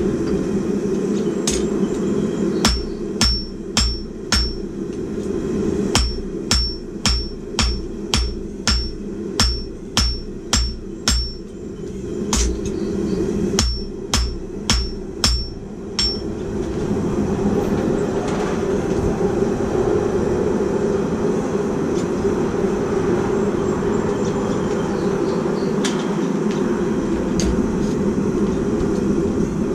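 Hand hammer forging hot steel on an anvil, about two blows a second, each with a bright metallic ring, for roughly the first half. The blows then stop, leaving a steady roar that grows louder, with a few light taps near the end.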